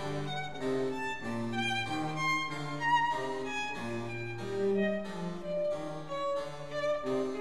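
Instrumental background music, a melody of held notes that change about every half second.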